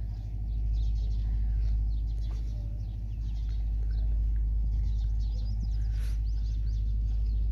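Many small birds chirping and twittering over a steady low rumble.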